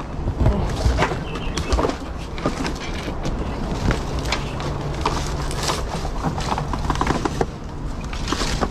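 Rustling and crunching of movement through leafy undergrowth and scattered litter, with many irregular sharp clicks and snaps throughout.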